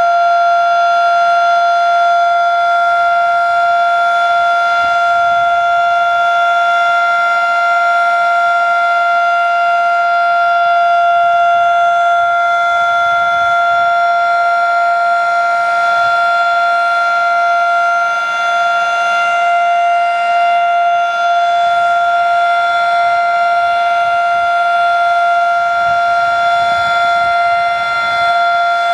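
Federal Sign and Signal Model 3 outdoor warning siren sounding a steady tone at full speed, its pitch holding level throughout, during a tornado siren test.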